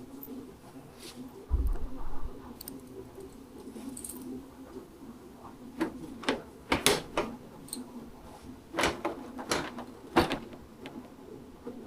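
Scattered sharp clicks, clinks and light knocks of hand tools and screws being handled while the motorcycle's fairing is screwed back on, with a low thump about one and a half seconds in.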